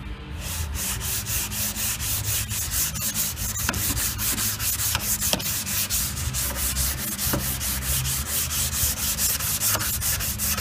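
Hand block-sanding of polyester primer on a VW Double Cab's body panel with a worn 180-grit sheet: rapid, even back-and-forth scratching strokes, starting about half a second in, with a few sharp ticks among them.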